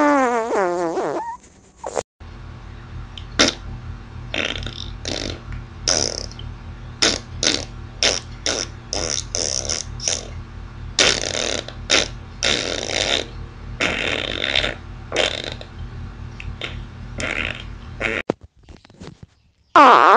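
A string of farts: a long, wavering, pitched fart that falls in pitch at the start. Then many short, hissy sputtering farts follow one after another over a steady low hum. Another short pitched fart comes near the end.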